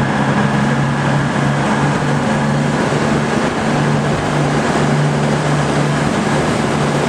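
Passenger train moving slowly past the station platform, with a steady diesel drone and a low hum under the running noise.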